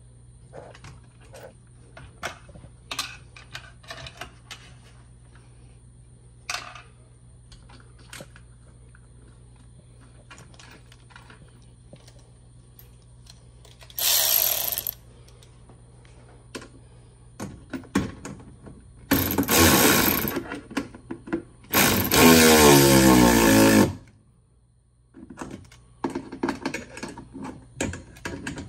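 Red Milwaukee cordless electric ratchet running in several short bursts of one to two seconds, driving nuts onto the bolts of a golf-cart roof bracket. Light metal clicks and knocks from the tools come before it in the first half.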